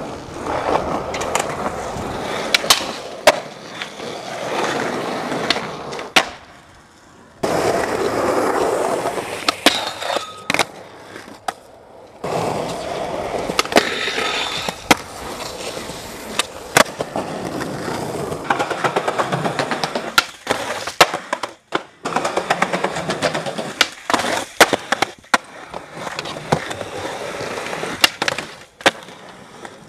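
Skateboard wheels rolling on concrete, broken by many sharp pops and landing slaps of the board, and the scrape of trucks grinding along a curb. The rolling noise cuts out abruptly a couple of times.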